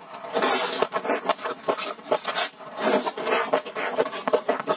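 Close-miked mukbang eating sounds: noodles slurped from chopsticks in several short loud pulls, then wet chewing with many small clicks of the mouth.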